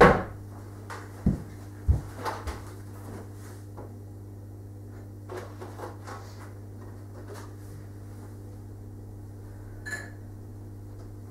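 Kitchen clatter of someone working at the counter: sharp knocks of crockery and cupboard doors, several close together in the first few seconds and a few lighter ones later. A steady low hum runs underneath.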